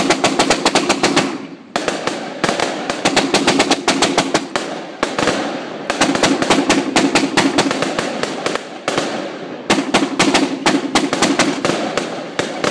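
A Royal Fireworks Mega Cakebox, a 238-shot firework cake, firing in fast volleys of sharp cracks, several shots a second. There are short breaks between the volleys, about 2, 5 and 9 seconds in.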